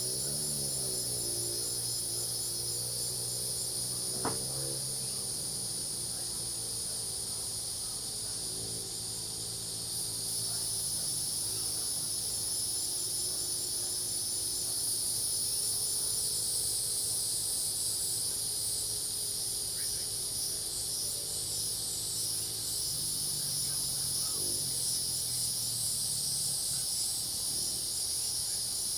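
Steady chorus of crickets and cicadas, high and shrill, with a fast even pulsing trill among them, over lower wavering calls of frogs. A single sharp tick sounds about four seconds in.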